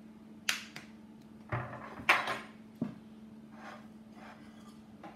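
Tableware sounds: a few sharp knocks and clinks as a syrup bottle and cutlery meet a table and a ceramic plate, then softer scraping of a knife and fork cutting pancakes on the plate.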